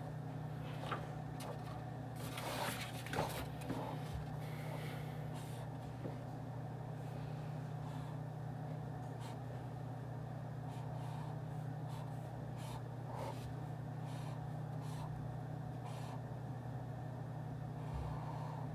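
Office room ambience: a steady low hum, such as ventilation or air conditioning, with scattered small clicks and taps, a little cluster of them a few seconds in.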